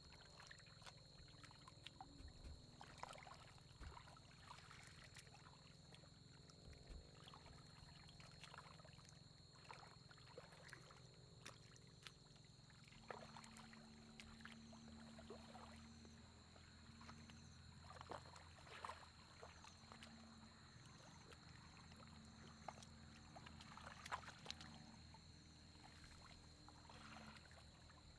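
Faint sloshing and small splashes of muddy water as hands grope through a shallow flooded rice paddy, over a thin steady high tone.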